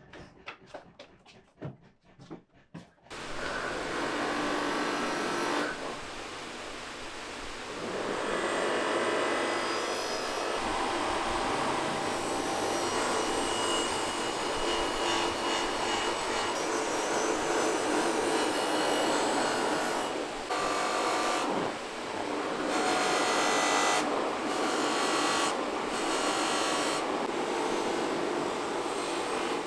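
A motor-driven polishing wheel running while the edge of a copper egg pan is pressed against it: a steady rubbing and grinding hiss over the machine's whir. It starts about three seconds in, after a few light clicks, and drops away briefly a few times near the end.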